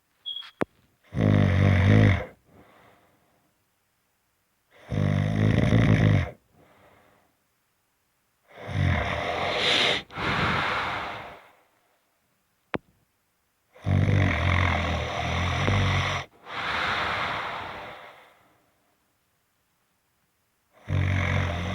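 Loud snoring: about five deep snores a few seconds apart, with silent gaps between them. The later snores run longer, each followed by a softer breath.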